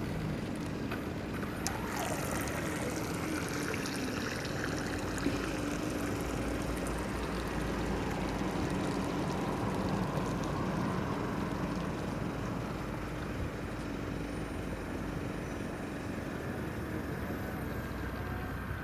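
Radio-controlled model speed boat running on a pond: a steady motor drone over the rushing hiss of water off the hull, with the pitch falling about two seconds in.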